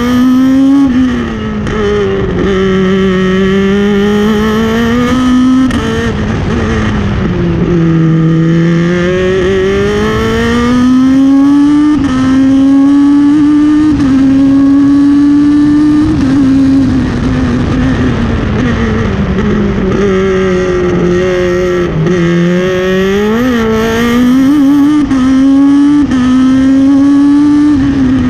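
Ligier JS53 Evo3 sports prototype's engine heard from the cockpit under race power: the revs climb and drop sharply at each upshift, and sag and rise again through the slower corners.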